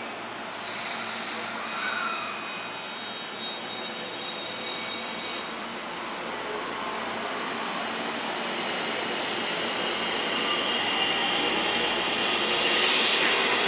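Electric train approaching, growing steadily louder, with high steady whining tones over the running noise.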